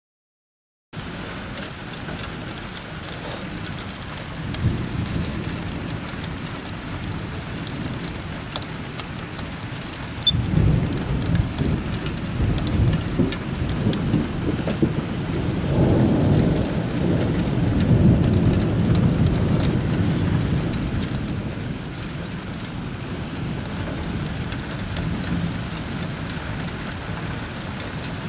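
Steady rain with rolling thunder. A short rumble comes about four seconds in, then a sudden crack about ten seconds in that rolls on in long low rumbles, swelling again a few seconds later and fading back to the rain.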